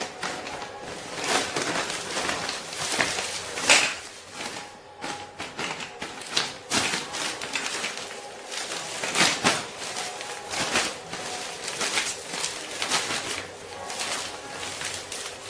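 Irregular rustling, clicks and knocks of photo-lighting gear and its packaging being handled, with no steady rhythm.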